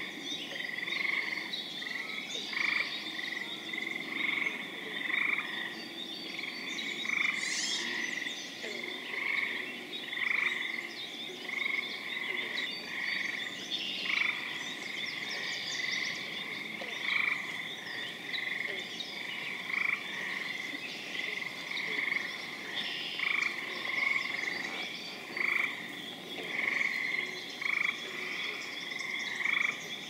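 Frog chorus in a spring marsh: gray treefrogs give short trills over and over, every second or two, over the continuous high-pitched ringing of a spring peeper chorus.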